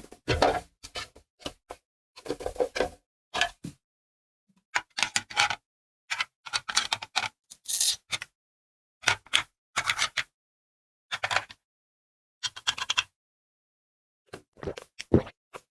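Small plastic toy pieces being handled, clicking and clacking in short clusters with silent gaps between.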